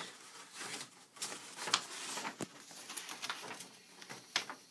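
Paper rustling and crinkling as a large folded instruction booklet is handled and unfolded, with a few sharp crackles of the paper.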